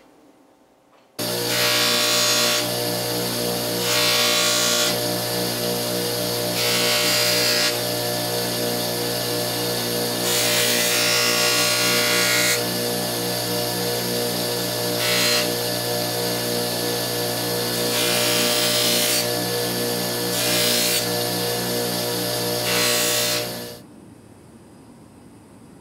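An electric power tool's motor running at a steady speed, with repeated bursts of grinding or rubbing noise as metal is pressed to the wheel or belt. It starts abruptly about a second in and stops near the end.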